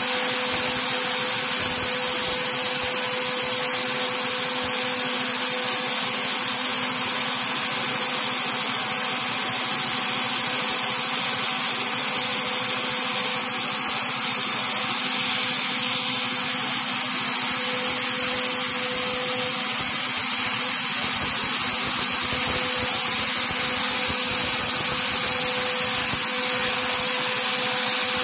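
CNC router spindle running steadily with a constant whine while its end mill cuts the workpiece, under a loud steady hiss from the nozzles blowing at the cutter.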